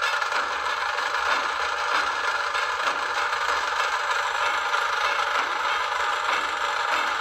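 Several hand-held sparklers burning, giving a steady dense crackling fizz.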